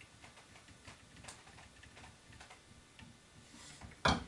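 Faint ticks and creaks from an action wrench and barrel vise being pulled up with a bow scale as a rifle barrel is torqued into its action, then one sharp crack about four seconds in.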